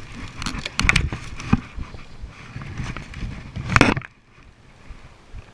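Dry sticks and brush crackling and snapping underfoot in irregular bursts, with gear scraping against the body-worn camera, as a man carries a load across deadfall and beaver-cut branches. The loudest crack comes about four seconds in, and the sound is quieter after it.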